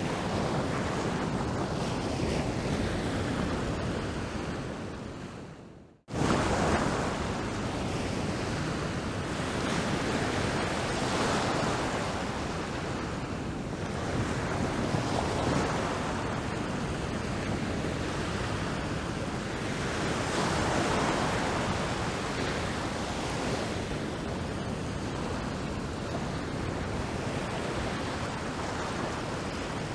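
Ocean surf breaking over rocks: a steady rush that swells louder every several seconds. It fades out about five seconds in, stops briefly, then cuts back in abruptly.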